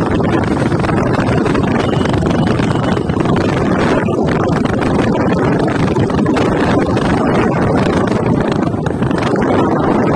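Wind buffeting the microphone on a moving motorcycle, a steady loud rushing, over the drone of the new TVS Radeon's single-cylinder engine running at road speed.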